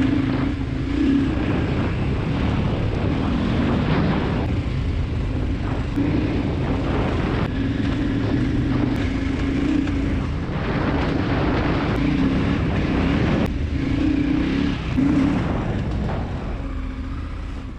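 KTM 1290 Super Adventure R's V-twin engine running on light off-road terrain, its pitch rising and falling in short spells as the throttle opens and closes.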